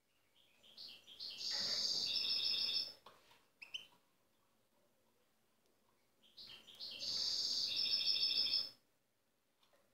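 European goldfinch singing its natural, untutored song: two loud phrases a few seconds apart, each a run of short high notes that builds into a longer stretch of dense, high twittering.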